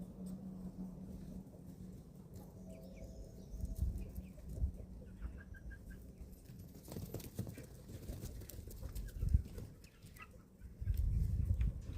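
Young chickens feeding: sharp pecking taps, faint peeps and soft clucks, with a few low thumps, the longest near the end.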